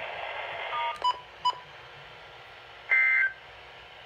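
Electronic beeps from a weather radio receiver over faint radio hiss. Two short single-pitched beeps come about a second in, then a louder, longer beep of several tones at once near the end.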